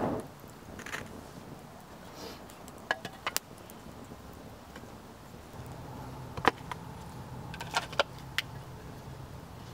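Small campfire of split ash crackling, giving a handful of scattered sharp pops in two clusters, about three seconds in and again between six and a half and eight and a half seconds in. The wood is not fully cured and is burning poorly.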